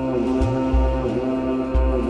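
Background music: sustained, slowly shifting chords over low bass notes that swell twice.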